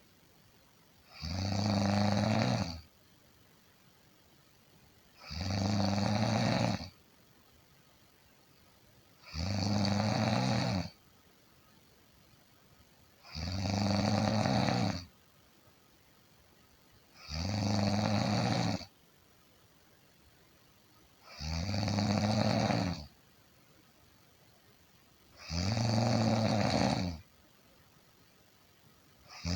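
Snoring in a very even rhythm: seven snores, one about every four seconds, each lasting about a second and a half, with quiet between them.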